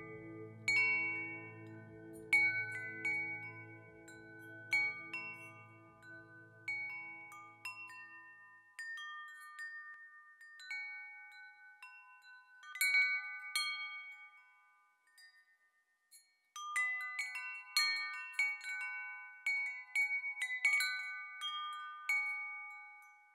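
Relaxation background music of wind chimes ringing in random, overlapping strikes, over a low sustained drone that fades out about a third of the way in. The chimes thin out to a brief lull a little past the middle, then come back more densely.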